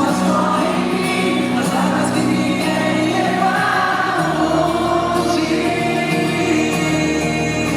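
Live band music with sustained singing over it, steady and loud throughout.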